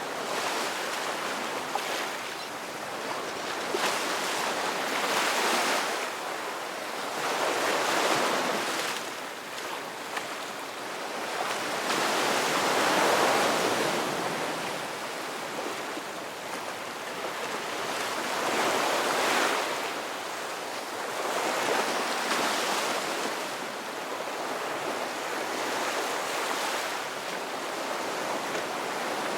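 Ocean surf: waves washing in one after another, the hiss of the water swelling and fading every few seconds.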